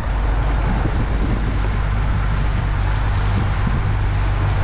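Small boat's engine running with a steady low hum, under wind buffeting the microphone.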